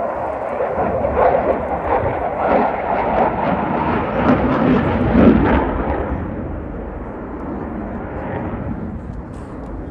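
Dassault Rafale's twin Snecma M88 jet engines, a loud rough crackling jet roar as it passes, dying away after about six seconds.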